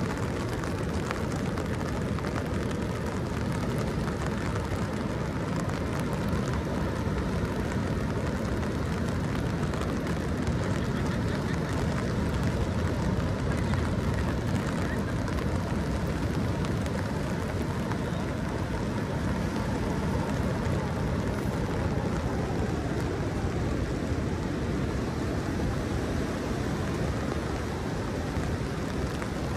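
Rain crackling on an umbrella overhead, a steady dense patter of drops, over a continuous low rumble.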